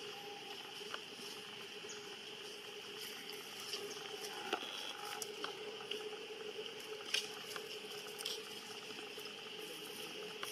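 Outdoor ambience: a steady low hum and a steady higher buzz, with scattered small clicks and patters.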